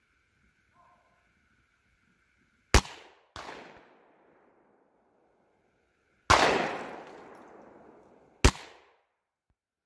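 Rossi RS22M .22 WMR rifle firing two sharp shots about six seconds apart. A second bang follows just after the first shot, and a louder bang with a long fading tail comes a few seconds later.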